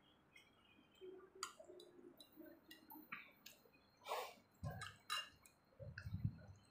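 Faint, scattered clicks and clinks of a fork on a plate during hand-feeding, with soft mouth and chewing sounds. A few low muffled sounds come in over the last two seconds.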